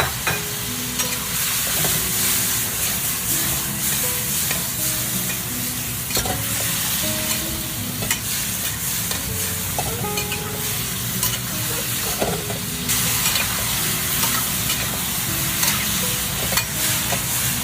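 Snakehead fish slices with green and red chili peppers sizzling as they are stir-fried in a hot pan, with a steady hiss and scattered scrapes and knocks of the stirring utensil against the pan.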